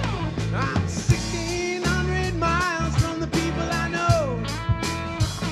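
Live rock band with drum kit and electric and acoustic guitars playing an instrumental break. A lead line bends up and down in pitch over a steady beat with sharp drum hits.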